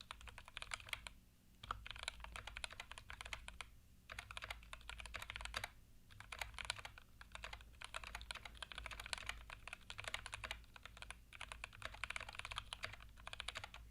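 Fast typing on a newly built mechanical keyboard with lubed switches: dense runs of key clicks and clacks, broken by short pauses a few times.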